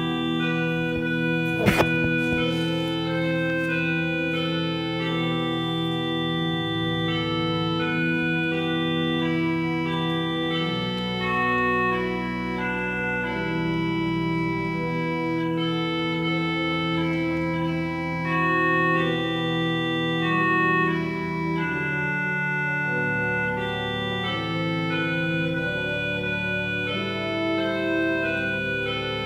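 Organ playing slow, sustained chords that change every second or two. A single sharp click sounds about two seconds in.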